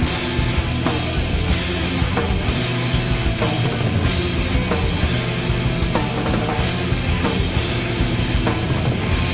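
Rock music with drums and distorted electric guitar, a steady beat.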